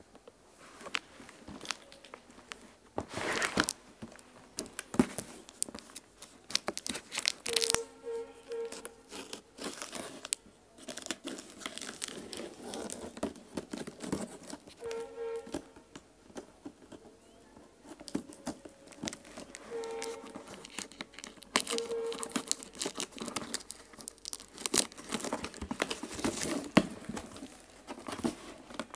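Cardboard box in plastic wrap being handled and torn open: crinkling, rustling and tearing with many small crackles, and a few short squeaks.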